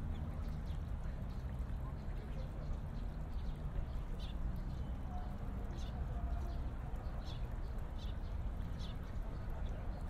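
Park ambience: small birds chirping in short high notes, about a dozen scattered through, over a steady low background rumble.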